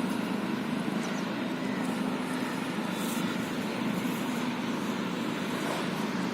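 A steady mechanical drone with a constant hum and hiss, even in level throughout.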